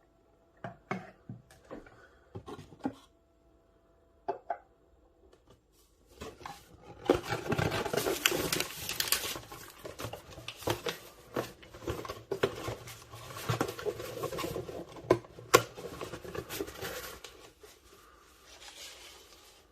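Soldering station and its cardboard and plastic packaging being handled during unboxing: a few sharp knocks and taps, then about ten seconds of rustling and scraping with scattered clicks, one louder click near the end before it dies down.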